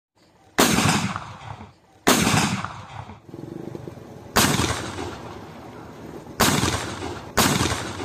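A home-made PVC-pipe combustion 'potato gun', lighter-ignited, firing five loud bangs at uneven intervals. Each bang is followed by an echo that dies away over a second or so. These are the blasts used to scare birds and nilgai off crops.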